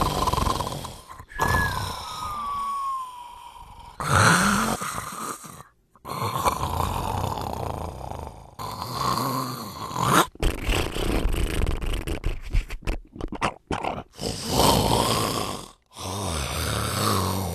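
A string of different snores cut one after another, rasping and snorting. About a second in, one snore carries a whistle that slides down in pitch, and near the middle comes a quick run of short, choppy snorts.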